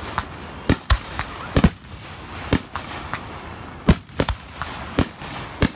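Fireworks going off: a string of sharp bangs at uneven intervals, about two a second, some louder and some fainter.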